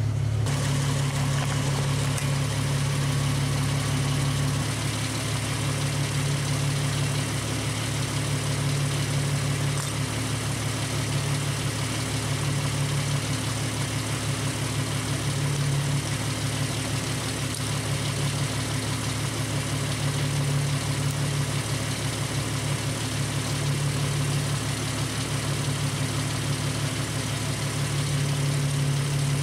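Jeep Wrangler YJ engine idling steadily at about 800–900 rpm, with its belt-driven onboard air compressor (a converted Sanden air-conditioning compressor) switched on, pumping air at idle. A steady hiss runs over the engine.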